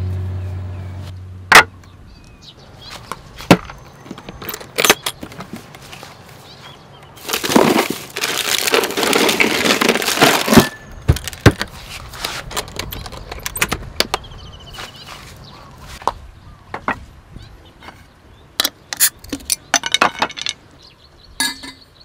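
Hands opening and rummaging in a hard-sided camping cooler. There are sharp clicks from its latches and handling, glassy clinks, and a few seconds of dense rattling and rustling in the middle.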